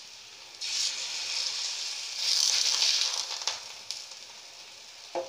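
Batter-coated bottle-gourd slices sizzling in mustard oil on a hot tawa. The sizzle starts suddenly about half a second in, as a fresh slice goes onto the pan, is loudest around the middle, and dies back to a low hiss near the end.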